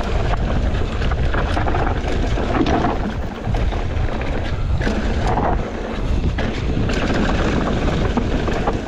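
Wind rushing over the microphone and tyres rolling on a rocky dirt trail as a 2021 Ibis Ripmo AF mountain bike descends, with frequent short rattles and knocks as the bike goes over bumps.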